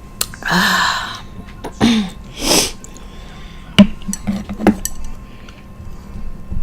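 Eating at a table with dishes and utensils handled: three short noisy bursts in the first three seconds, then a run of light clicks and taps.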